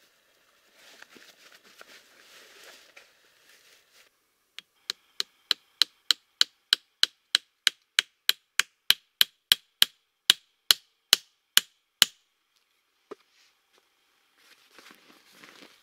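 Fabric rustling of a canvas poncho being handled, then a wooden stake being driven into the ground with the head of an axe: about 25 sharp knocks at roughly three a second with a faint ring between them, and one last knock a second later. More rustling near the end.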